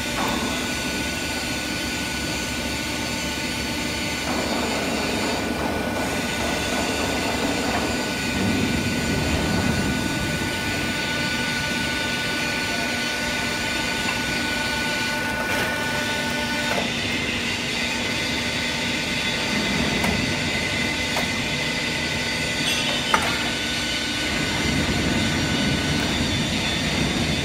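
Hydraulic pipe-bending machine running: a steady mechanical hum with a high whine from its hydraulic unit, and one sharp click late on.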